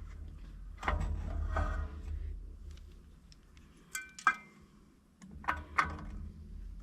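Metal clinks and knocks of hand tools and bolts being worked on a disc mower's end pod, with two sharp ringing metal strikes about four seconds in and a few more knocks near the end.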